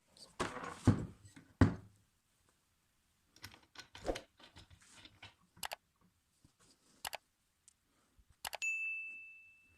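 Metal parts being handled: several knocks and clanks in the first two seconds, lighter clicks after, then a sharp strike near the end that leaves one high metallic ring fading away.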